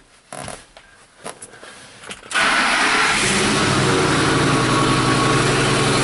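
Ford F-150's 5.4-litre V8 engine starting suddenly about two seconds in and settling into a steady, loud idle, which the mechanic takes for a sign of leaking exhaust manifolds.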